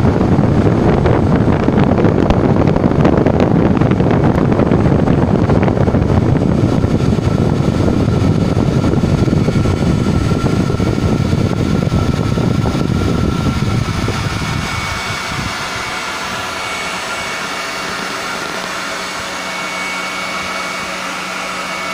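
90 mm electric ducted fan of an RC model jet running at steady speed, a loud rushing of air with a heavy rumble. About fifteen seconds in the rumble falls away and a steadier, thinner whine remains.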